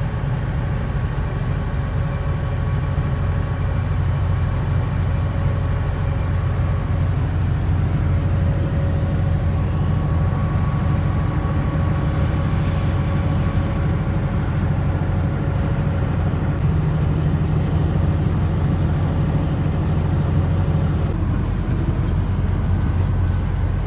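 Semi truck driving on the road, heard from inside the cab: a steady low engine and road rumble with a faint even hum above it.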